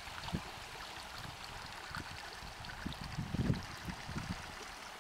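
Shallow creek trickling and babbling over gravel and stones in a steady wash, with irregular low rumbles on the microphone, the strongest about three and a half seconds in.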